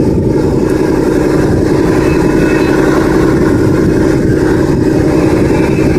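Steady engine-like mechanical running noise, unchanging throughout.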